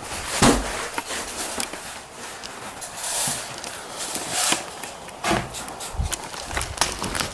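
Knocks and rustling of a player moving with gear, with an irregular run of thumps and swishes. The loudest is a heavy thump about half a second in.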